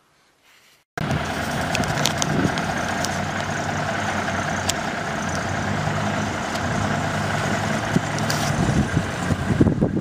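Heavy off-highway logging truck's diesel engine running steadily as the loaded truck creeps forward, cutting in suddenly about a second in. Wind buffets the microphone near the end.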